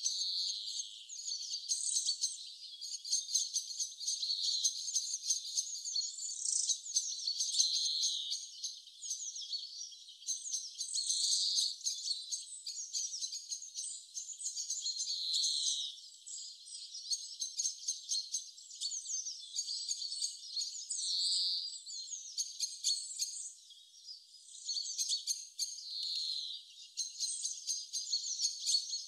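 Many birds chirping and trilling, heard thin and high-pitched with nothing low in it.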